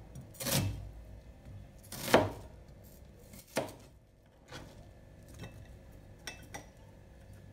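Chunks of crisp green bell pepper handled and rubbed together in the hands, giving short crisp squeaky rubs: three louder ones about a second and a half apart, then several fainter ones.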